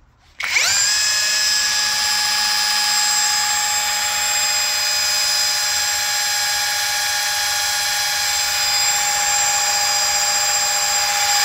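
Cordless drill spinning up about half a second in, then running at a steady speed, turning a removed power steering pump through a large socket. The steady whine comes from the drill itself; the power steering pump makes no squeal.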